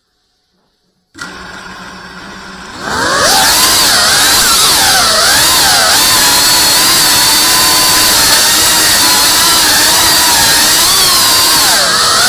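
Electric motors and propellers of a small FPV drone spinning up: a quieter hum at idle about a second in, then a loud whine from about three seconds in whose pitch rises and falls as the throttle changes in flight.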